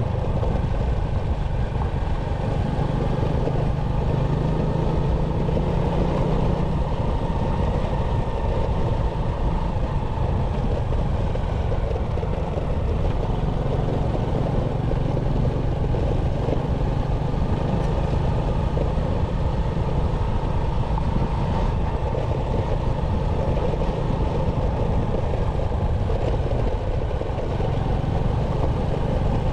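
Motorcycle engine running steadily under way, its pitch shifting slightly now and then, over a constant low rumble.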